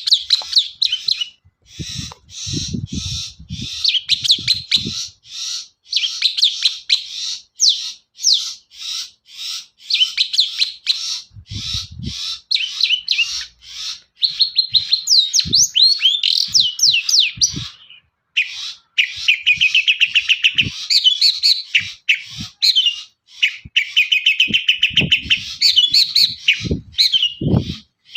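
Long-tailed shrike (cendet) singing a fast, chattering song of rapidly repeated sharp notes and trills, breaking off briefly about 18 seconds in and then resuming in a dense, continuous twitter.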